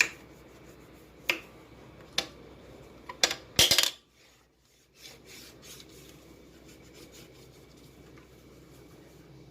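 Sharp clicks and knocks of hard parts being handled at a sewing machine: one at the very start, single knocks about one and two seconds in, then a quick clatter of several knocks near the four-second mark, the loudest of them.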